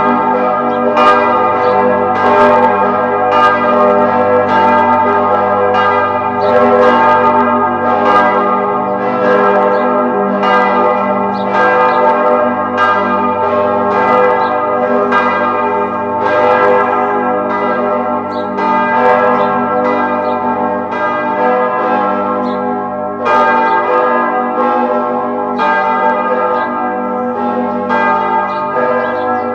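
Several church bells ringing together, struck one after another in a steady stream, each bell's tone ringing on under the next strikes.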